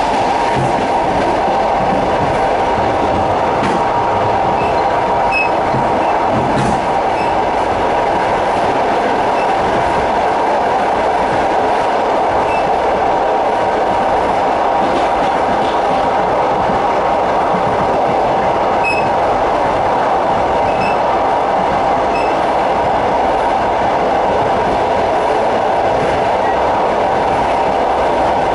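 Passenger train running steadily, heard from aboard: a continuous loud rumble of coach wheels rolling on the rails, with no clear beat of rail joints.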